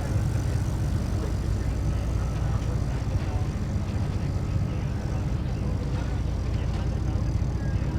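Boat engine running steadily underway, a low, even drone.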